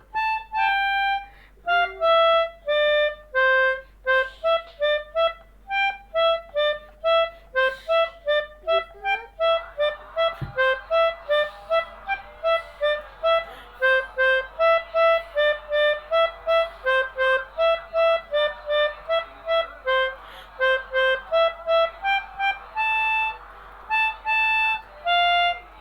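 Multi-tone 'basuri' telolet air horn playing a quick tune of short, separate honked notes that step up and down in pitch, with a reedy tone. It is played by a beginner.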